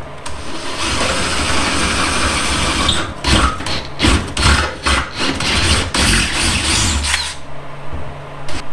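Cordless drill running a bit through misaligned bolt holes to open them up so the bolts will fit. The motor runs steadily for about three seconds, then in short stop-start pulses, and stops about seven seconds in.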